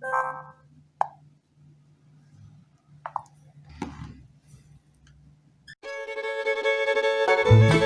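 BQ Contact phone playing short preset notification chimes a few seconds apart, over a faint hum. About six seconds in, a music ringtone starts, and low bass notes join shortly before the end.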